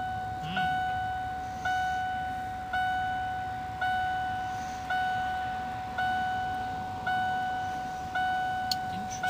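Van's door-open warning chime dinging steadily, about once a second, each ding a single clear tone that fades before the next; it keeps sounding because the driver's door is standing open.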